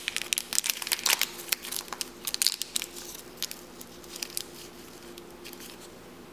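Plastic packaging crinkling as a small wrapper holding a Shopkins toy is opened by hand. The crackles come thick and fast for the first few seconds, then thin out and fade.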